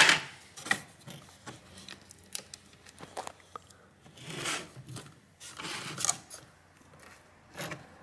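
Hands handling an opened laptop: light clicks and scraping of the plastic keyboard deck and casing as the keyboard ribbon cable is worked toward its connector, with a few soft rustling swells.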